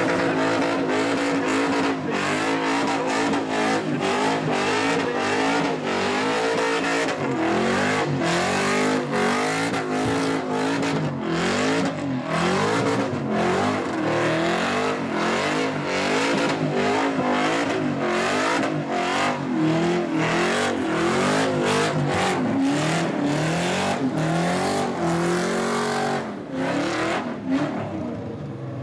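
V8 Holden Commodore doing a burnout: the engine held at high revs, pitch surging up and down, with tyre noise from the spinning rear wheels. The revs ease off near the end.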